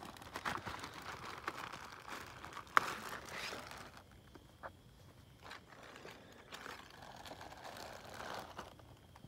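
Clear plastic bag crinkling and rustling as hands open it and pull out a paper booklet, with one sharp click a little under three seconds in. After that the crinkling goes quieter, with scattered light ticks as a second small plastic bag is handled.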